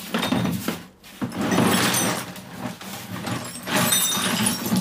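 Loose rusty bolts, nuts, washers and small metal parts poured from a plastic bucket onto a tiled floor: a loud, jingling clatter of metal on metal and tile. It pauses briefly about a second in, then pours again.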